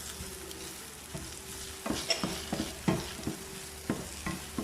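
Chopped garlic and ginger sizzling in butter in a pan, stirred with a utensil that scrapes and knocks against the pan several times from about a second in.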